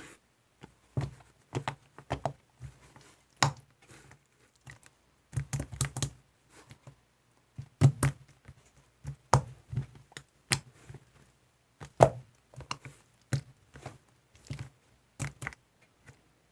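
Store-bought slime being squished and poked by hand: irregular sticky clicks and small pops, sometimes several in quick succession.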